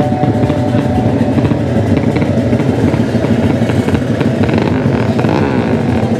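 Racing motorcycle engines running loudly, with the revs rising and falling a few times in the second half.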